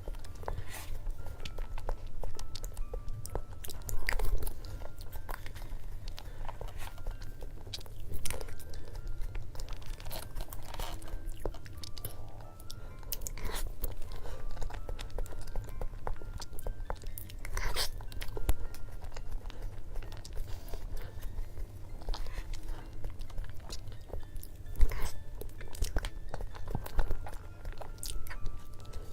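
A person eating dessert close to the microphone: biting and chewing, with sharp crunchy bites at irregular intervals. Faint background music runs underneath.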